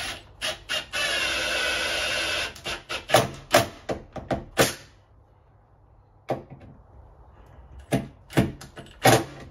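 Cordless drill/driver briefly blipped twice, then run steadily for about a second and a half, driving a screw for a door-jamb security latch. A string of sharp clicks and knocks follows from the metal latch and hardware being handled, with a few more knocks near the end.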